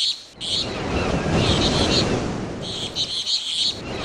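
Nature ambience: a steady rushing wash of noise that swells in about half a second in, with repeated bursts of high bird chirping over it.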